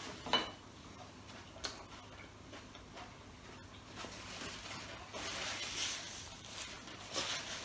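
Close-up eating sounds as a burger is chewed. A light clink of tableware comes about half a second in, and a soft rustle of a paper napkin wiping the mouth near the end.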